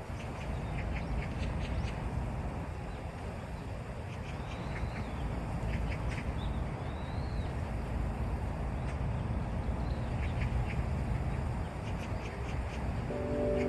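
Park ambience: a steady rushing background with scattered short bird calls, including a few brief rising-and-falling chirps in the middle.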